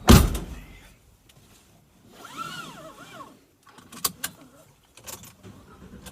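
A loud thump, then a pitched sound that bends up and down for about a second, followed by a few sharp clicks.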